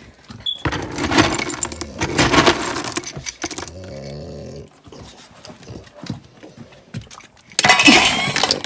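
Dry dog kibble rattling and shifting as a mug is scooped through a plastic storage tub of it, then a loud rush of kibble poured into a stainless steel dog bowl near the end.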